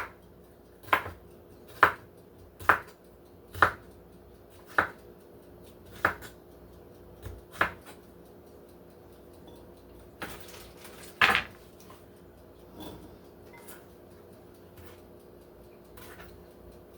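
Knife dicing cucumber on a cutting board: single sharp chops about once a second, slowing after the first several seconds. A little past halfway comes a brief scrape and one loud knock, then only a few faint knocks.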